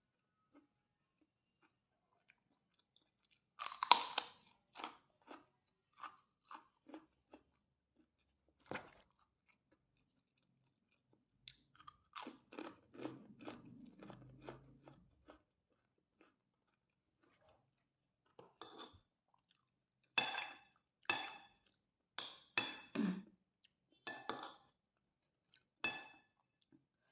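Person chewing a mouthful of fried rice with crunchy kerupuk crackers: several bouts of crisp crunching, separated by pauses.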